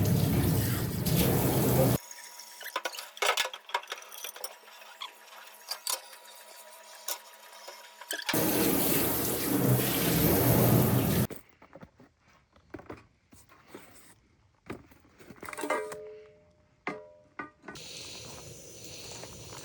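Tap water running hard into a sink in two stretches, each cutting off suddenly. Faint clicks and knocks come between the stretches and after them.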